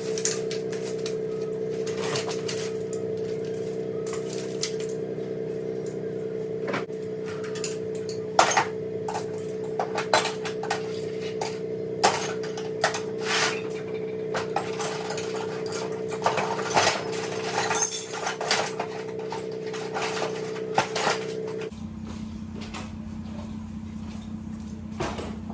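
Metal tools and parts clinking and clanking as they are handled and gathered, many sharp knocks at irregular intervals, over a steady mechanical hum that changes to a lower hum near the end.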